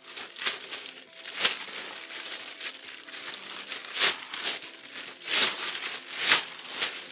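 Crinkling and rustling handling noise, with about five louder crinkles spread irregularly through it.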